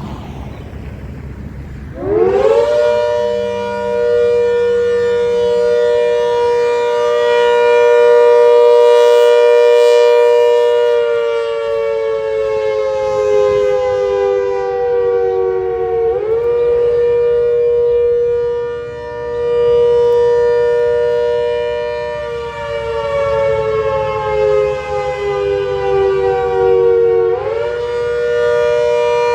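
ACA Hurricane MKII outdoor warning siren winding up about two seconds in and holding a loud steady two-note chord. Twice its pitch slowly sags and then snaps back up: the hesitating blower that the uploader takes as a sign the problem-prone unit is near failure.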